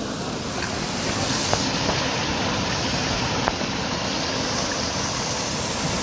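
Mountain stream water rushing and splashing over rocks at a small cascade close to the microphone: a steady rushing hiss that turns brighter about a second and a half in.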